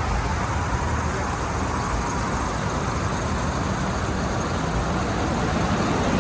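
Steady vehicle and road noise: a low rumble with an even hiss.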